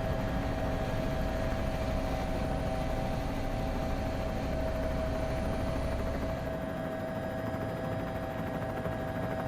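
A steady mechanical drone with a constant mid-pitched whine and no revving. The deepest rumble drops away about seven seconds in.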